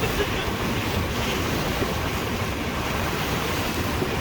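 Steady rush of wind and sea water with a deep rumble, wind buffeting the microphone.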